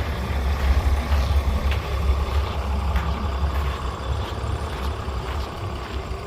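Heavy diesel engine running steadily with a deep low rumble, a few faint clicks over it.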